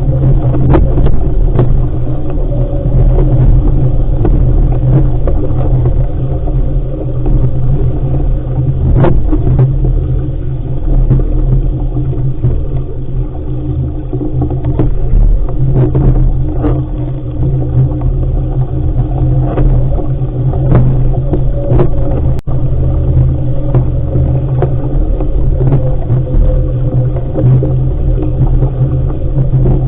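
Loud, steady wind rumble on the microphone of a sailing dinghy under way, with water noise and scattered short knocks or slaps.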